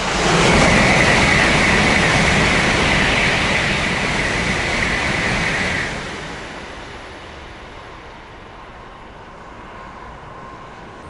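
Shinkansen bullet train passing through the station at speed without stopping: a loud rush of air and wheels with a steady high whine. About six seconds in, the sound drops suddenly to a fainter rumble as the train goes by.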